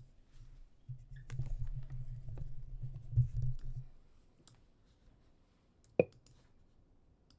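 Scattered clicks of a computer mouse and keyboard, with a low rumble for a few seconds and one sharper click about six seconds in.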